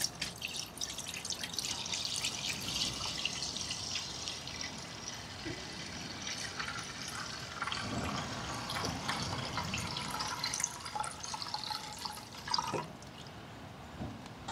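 Petrol poured in a steady stream from a plastic jug into the inside of an upturned plastic Jaguar XK8 headlight unit. The pouring stops near the end.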